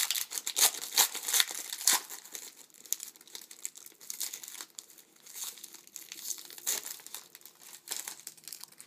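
Foil trading-card pack wrapper crinkling as it is torn open and handled, a dense run of sharp crackles.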